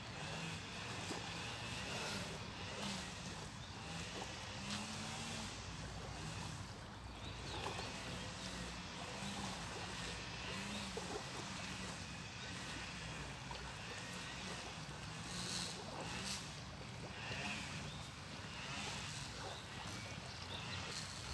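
A small engine drones with a pitch that keeps wavering up and down, over a steady wash of strong wind and lapping lake waves.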